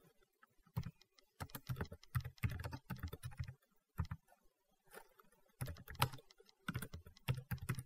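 Typing on a computer keyboard: runs of quick key clicks, thinning to a few single taps for a second or so near the middle before picking up again.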